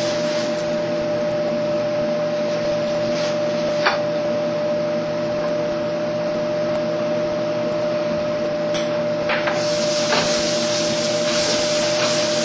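Steak sizzling on an indoor grill: a steady hiss over a constant hum, with a faint click about 4 s in and another about 9 s in.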